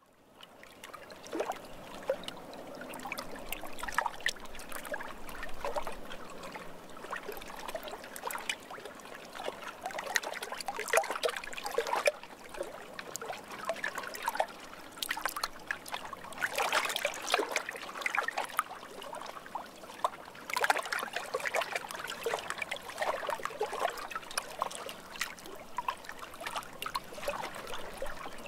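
Water trickling and splashing lightly, with many small irregular splashes. It fades in from near silence over the first second or two.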